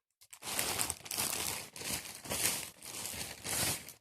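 Plastic parcel wrapping crinkling as it is handled, in three bursts.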